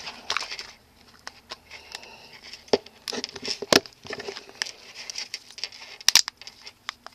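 Back case of an iPod Video 5th generation being pressed and snapped onto its front shell by hand: a string of sharp clicks and cracks from the case clips, with rustling from fingers handling the player. The loudest snaps come near the middle and about six seconds in, and sound 'not so cool', rough rather than clean.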